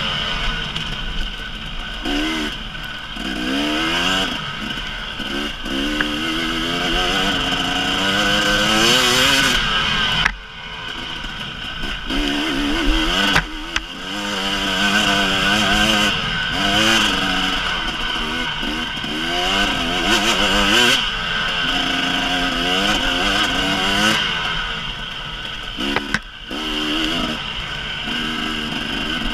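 2018 KTM 300EXC single-cylinder two-stroke dirt bike engine under hard riding, its pitch climbing and falling again and again as the rider accelerates and shifts up. The throttle is chopped briefly a few times.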